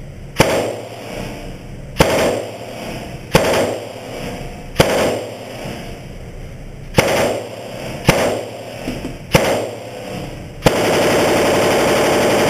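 Seven single rifle shots from an M1 Garand fired semi-automatically, spaced about a second or two apart, each followed by a short echoing tail. Near the end comes a loud, unbroken burst of rapid fire lasting about two seconds.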